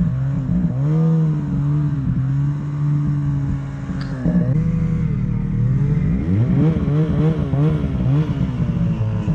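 Snowmobile engine running under throttle while the sled ploughs through deep powder, its pitch rising and falling again and again as the throttle is worked, with quicker rises and drops in the second half.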